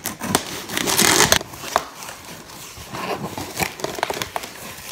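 Packing tape being cut and pulled off a small cardboard box, then the cardboard flaps opened: irregular rustling and scraping with scattered clicks, the loudest a rasping stretch about a second in.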